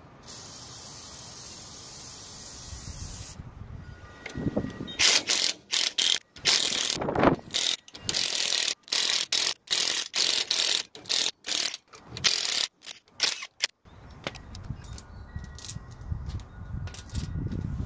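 Aerosol penetrating spray hissing steadily for about three seconds onto the hub bolts. A few seconds later comes a run of a dozen or so loud, rattling mechanical bursts from a wrench working the bolts loose, which stop suddenly near the end.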